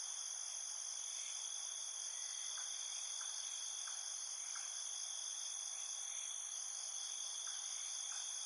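Steady, high-pitched chorus of insects such as crickets, trilling without pause, with faint short chirps now and then beneath it.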